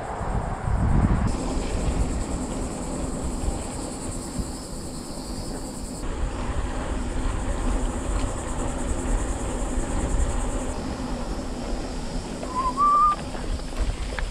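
Riding noise from a Santa Cruz Chameleon mountain bike recorded on a handlebar camera: steady wind buffeting on the microphone and tyre rumble. A high insect buzz cuts in and out, and a short whistle-like chirp comes near the end.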